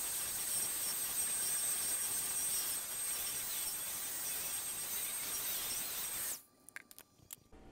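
Black & Decker electric hand mixer running steadily with a high whine, its beaters whipping batter in a stainless steel bowl. It is switched off about six seconds in, followed by a few light clicks and knocks.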